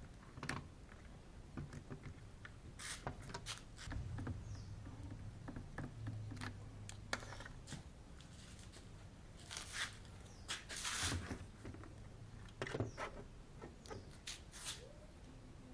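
Scattered clicks, taps and rustling from hands working on a washing machine's control-module wiring and plastic socket connectors, with a faint low hum in the middle.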